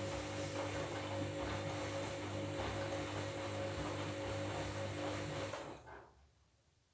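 Washing machine drum turning during the wash of a bed-linen load: the motor hums with a steady whine over the sloshing of water and wet laundry, then stops about five and a half seconds in.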